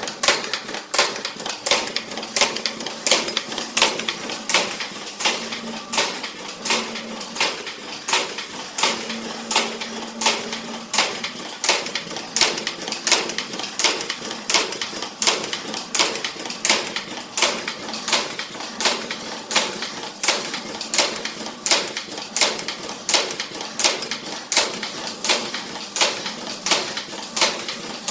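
Stainless steel strip pulling and punching machine running for cable-tie production, its punch striking in an even rhythm of about two sharp strokes a second over a faint steady hum.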